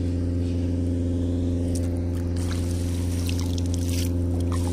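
A small boat engine running at a steady, even pitch, with scattered light water splashes and drips from about two seconds in.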